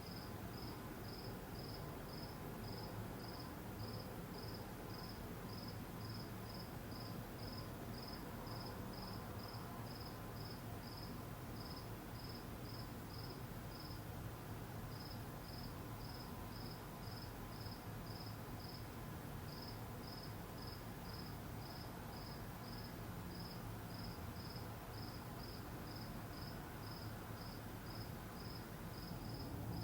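A cricket chirping steadily, short high chirps about twice a second, with a short pause about halfway through. A steady low background noise runs underneath.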